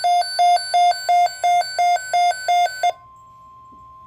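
A weather alert radio sounding its alert: a loud two-pitch electronic beep with many overtones, pulsing about three times a second, that stops about three seconds in. A quieter steady single tone near 1 kHz, typical of the NOAA Weather Radio warning alarm tone, takes over briefly before the broadcast voice begins.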